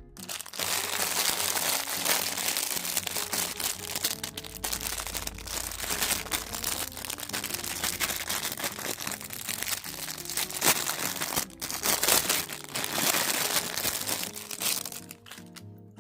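Packaging crinkling and crackling as it is handled and opened, in irregular loud bursts that die down near the end, over faint acoustic guitar music.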